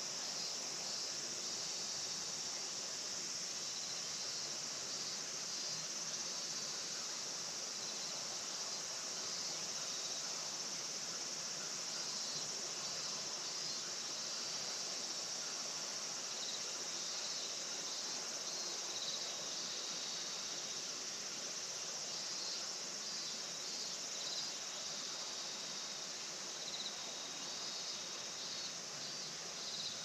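A steady evening chorus of insects in a rice field: a continuous high-pitched trilling drone, with shorter pulsed calls coming and going over it.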